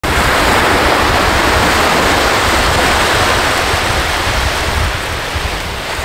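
Small waves breaking and washing up a sandy beach: a steady rush of surf that eases slightly near the end.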